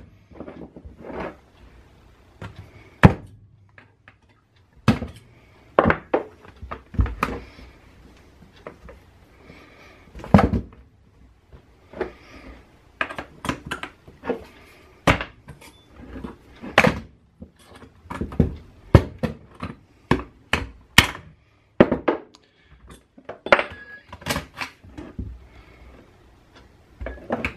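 Remington 11-87 semi-automatic shotgun being worked on by hand at the receiver: a string of irregular sharp knocks and clicks, some louder thunks among them.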